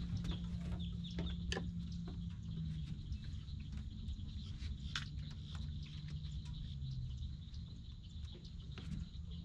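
Distant airboat engine droning steadily, its pitch sagging a little about seven seconds in, with birds chirping and a few light clicks and knocks close by.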